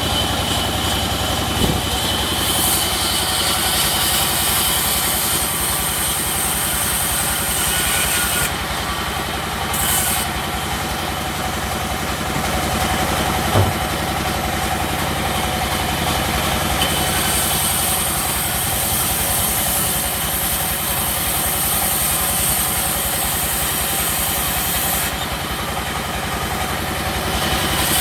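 Sawmill machinery running with a steady drone, a high hiss setting in and dropping away in long stretches, and a sharp knock about halfway through.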